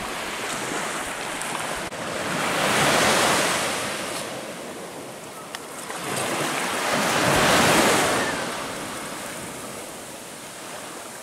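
Surf breaking on a sandy beach: two waves swell up and wash in, about three and seven and a half seconds in, each building and fading over a steady hiss of wash.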